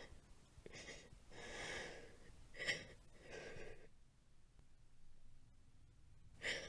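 A person breathing heavily and unevenly, with a few audible gasping breaths in and out in the first few seconds, a quieter pause, and another sharp breath near the end.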